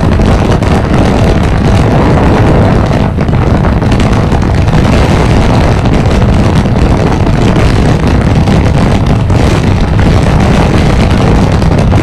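A motorcycle riding steadily at speed on the road: a loud, even rush of wind buffeting the microphone, mixed with the engine and road noise.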